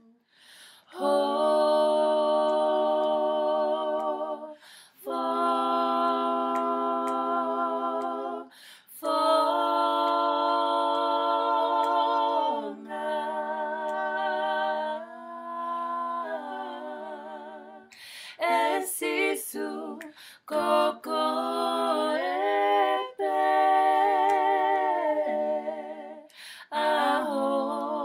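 Women's voices singing a Tongan-language hymn a cappella, with no accompaniment: long, held notes with vibrato, sung in phrases with short breaks between them.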